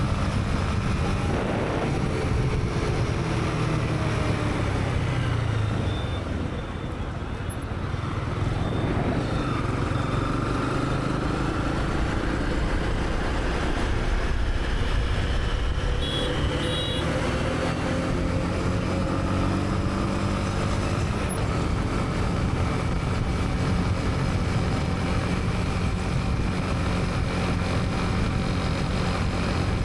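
Honda CB300R's single-cylinder engine running under way in traffic, its pitch rising and falling as the rider speeds up and eases off, with surrounding traffic noise. The engine quietens briefly about a quarter of the way through, and two short high beeps sound about halfway through.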